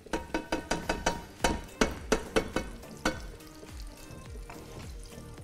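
Carrots and lemon pieces sizzling as they sear in a hot frying pan. For about the first three seconds there is a quick run of sharp clicks and knocks in the pan, then just a quieter steady sizzle.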